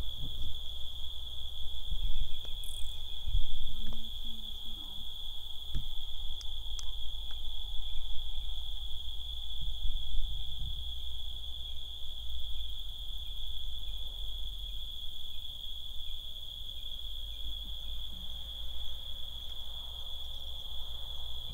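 Crickets trilling in one steady, unbroken high-pitched chorus, over uneven low rumbles and knocks on the microphone.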